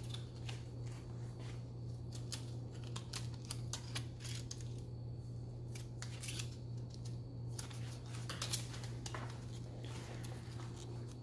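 Scattered small clicks and crinkles of an LED strip light and its reel being handled, over a steady low hum.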